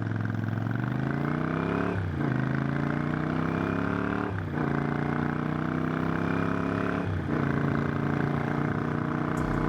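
Motorcycle engine accelerating up through the gears: its pitch climbs, drops sharply at each of three upshifts about two, four and a half and seven seconds in, and climbs again after each.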